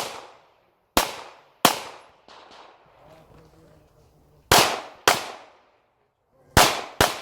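Pistol shots fired in quick pairs, three pairs spaced a couple of seconds apart. Each shot is sharp with a short echoing tail.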